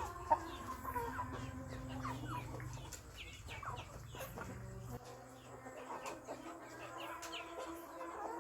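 Chickens clucking, with many short high-pitched calls repeating throughout. A low background hum cuts off about five seconds in.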